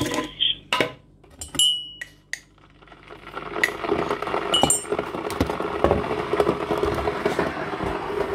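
Sharp clinks and knocks of a hard container being handled, one ringing briefly like glass about two seconds in, then a steady crackling rattle from about three seconds on.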